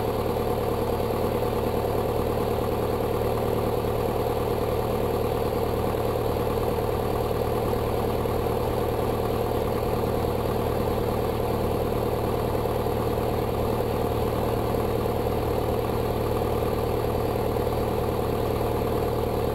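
Beechcraft Sundowner's four-cylinder Lycoming piston engine and propeller running steadily at low power while the aircraft taxis, an even drone heard from the cockpit.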